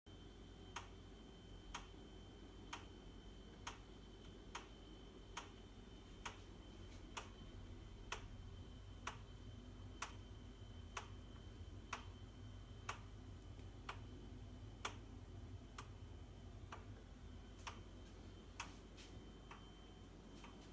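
Baxi gas boiler knocking: faint, sharp knocks at a steady rate of about one a second over a low hum.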